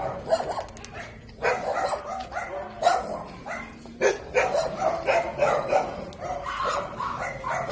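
Several dogs barking and yipping together, short overlapping barks following one another all the way through.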